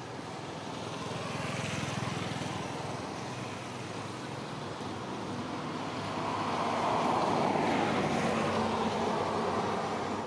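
Road traffic passing: two swells of tyre and engine noise, a smaller one about two seconds in and a louder one in the second half, each rising and fading away.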